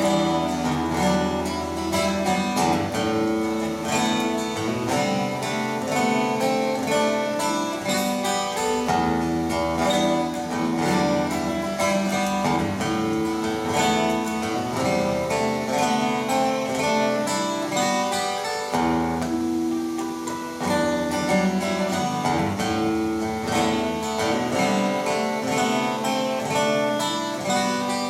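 Solo acoustic guitar with no voice, chords strummed and picked in a steady rhythm. It is the instrumental close of the song after its last sung line.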